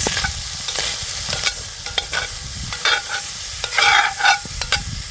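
Wallaby meat sizzling as it browns in a frying pan, stirred with a utensil that clicks and scrapes against the pan several times.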